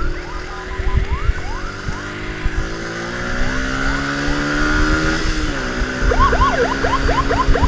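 Electronic siren in quick rising chirps, about three a second, over a motorcycle engine whose pitch climbs steadily and then drops at a gear change about five seconds in. After the drop the siren switches to faster, louder chirps, about five a second, with low wind rumble underneath.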